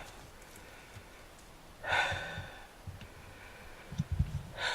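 A man's heavy sigh about two seconds in, then a few low thumps near the end.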